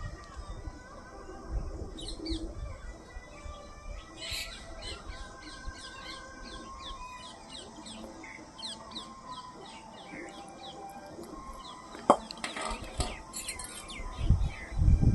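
Small birds chirping: many short, quick, high chirps, with one sharp click about twelve seconds in.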